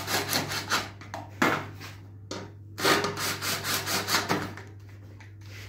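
Ryobi cordless drill driving the Allen grub screws of a self-aligning axle bearing, running in a few short rasping bursts as the screws are tightened to lock the bearing onto the axle.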